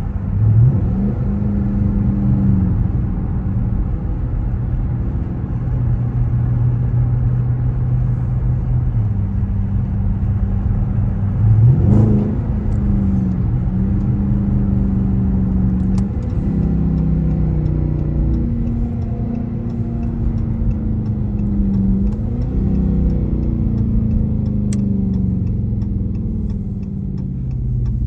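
Dodge car's engine heard from inside the car, pulling through the gears: its pitch climbs and drops back at each shift, several times, over a steady road rumble. Regular faint ticking starts near the end.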